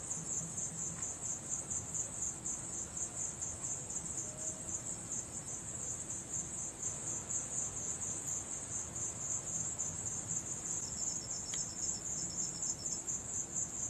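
Crickets chirping in a fast, even, high-pitched trill that never lets up, with a fainter second insect joining at a slightly lower pitch near the end.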